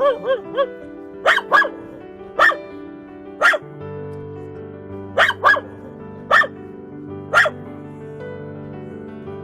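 A dog barking over background music: a few quick short yips at the start, then about eight sharper barks, some single and some in close pairs, spaced about a second apart.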